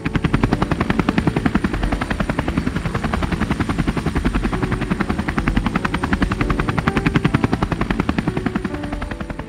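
Bell 206-series light helicopter hovering, its two-bladed main rotor giving a loud, fast, steady chop with the turbine running under it.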